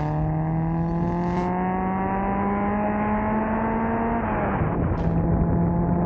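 Nissan SR20VE 2.0-litre inline-four engine pulling under acceleration, its pitch rising steadily for about four seconds. It then drops sharply at a gear change and pulls again.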